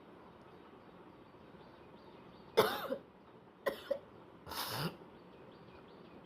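A person coughing and clearing their throat in three short bouts. A sharp, loud cough comes about two and a half seconds in, two quick hacks follow a second later, and a longer, rasping throat-clear comes near the end.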